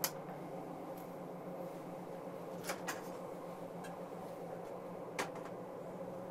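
Steady hum inside the driver's cab of a Z 50000 Francilien electric multiple unit running along the line, with a few short sharp clicks: one at the start, a close pair a little under three seconds in, and one about five seconds in.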